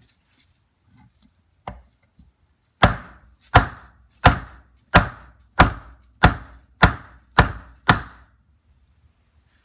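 Hammer blows on a hardwood block, one light knock and then nine steady, evenly spaced hard strikes, driving a heated Norton Commando crankshaft out of its crankcase.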